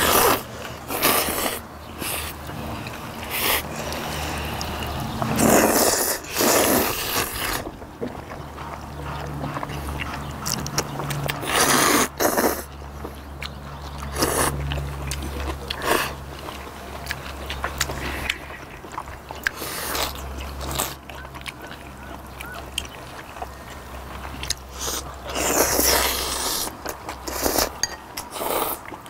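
Several people slurping noodles and chewing noisily while eating spicy cold noodles with raw fish (hoe-guksu), in loud irregular bursts of slurping with smacking and chewing between them.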